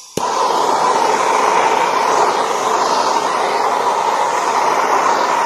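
Handheld gas blowtorch: a click, then the flame burning with a loud, steady rushing hiss.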